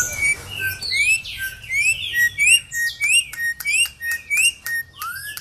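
Corrupião (campo troupial) singing: a fast run of clear whistled notes, mostly short rising whistles repeated about three times a second, ending with a lower arched whistle.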